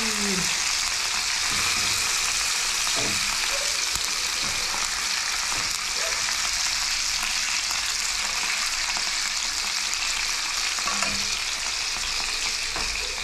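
A whole rat frying in hot oil in a non-stick frying pan: a steady sizzle, with chopsticks turning the meat in the pan now and then.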